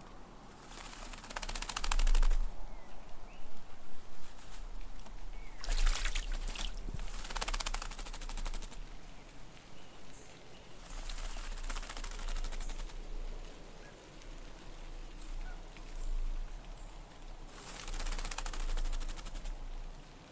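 Tūī bathing in a shallow water bowl: about five bursts of rapid wing-fluttering and splashing, each lasting up to two seconds, with faint high chirps in the gaps between them.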